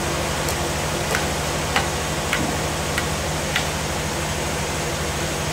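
An engine running steadily, with five light sharp knocks a little over half a second apart in the first half, from hand tools knocking against a large log.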